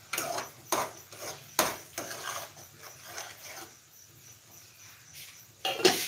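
Metal kitchenware, a steel bowl and pots, knocking and clattering as it is handled on a counter: a few knocks in the first two seconds and a louder clatter near the end.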